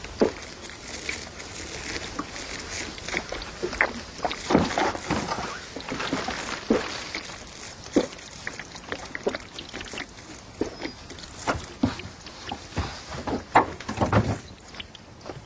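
A man drinking straight from a glass liquor bottle, a long string of irregular gulps and swallows with liquid sloshing in the bottle.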